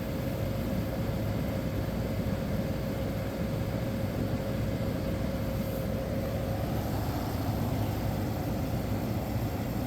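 1985 White Westinghouse window air conditioner running with its case off: the steady hum of its Matsushita rotary compressor and the rush of its fan, with a thin steady tone over a low drone.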